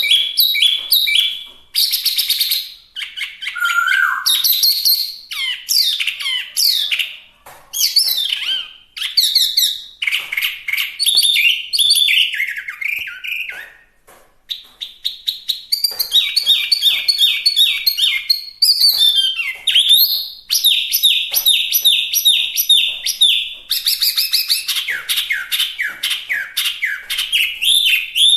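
Chinese hwamei singing loud, varied song: quick runs of repeated whistled notes, trills and sliding phrases that follow one another almost without pause, broken by a short gap about halfway through.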